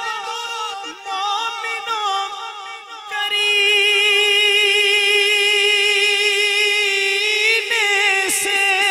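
Male naat reciter singing unaccompanied into a microphone: a winding melismatic phrase, then from about three seconds in a long held note with vibrato, the loudest part, which bends near the end.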